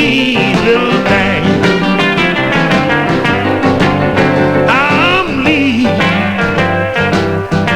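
Electric blues band recording playing, guitar over bass and drums with a steady beat.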